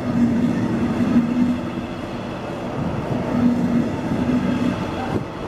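Double-deck passenger coaches of a regional express train rolling past close by as it pulls out of the station: a steady rumble of wheels on rail with a humming tone that comes and goes.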